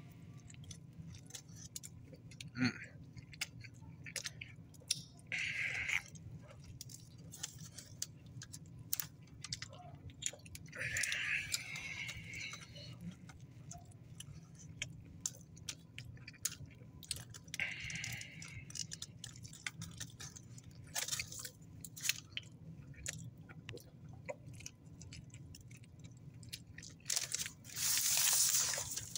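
Close-up chewing and biting of a chicken cheesesteak sub on a soft roll, with many small wet mouth clicks and short smacking patches every few seconds. Near the end comes a louder rustle of the sub's paper wrapper.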